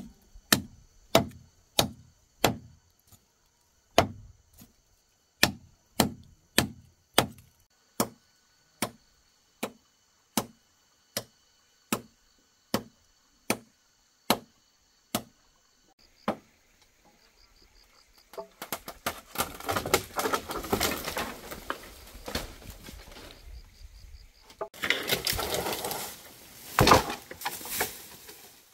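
A tool striking wood in steady, evenly spaced blows, a little over one a second, with a short pause near the start; the blows stop after about sixteen seconds. A stretch of rough rustling, scraping noise follows and grows louder near the end.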